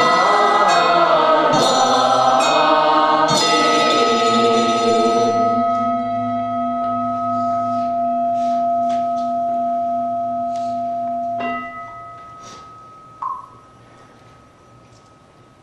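A group chanting in unison with struck bell strokes. The chanting stops about five seconds in and a bell's tone rings on alone for several seconds, then is cut off suddenly. After that come a few light knocks and near quiet.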